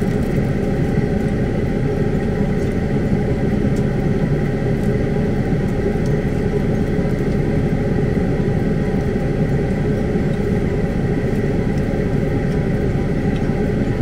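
Vehicle engine running steadily, heard from inside the cab: an even low rumble with a faint steady hum over it.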